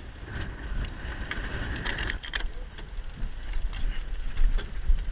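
A yacht's sheet winch ratcheting as it is tightened, with a quick run of sharp clicks about two seconds in and a few single clicks later. Under it is a steady rush of wind and water past the racing yacht.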